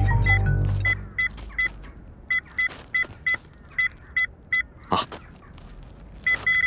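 Cartoon sound effect: a series of short, high electronic beeps at uneven spacing, then one long steady beep near the end. A few notes of background music are heard in the first second.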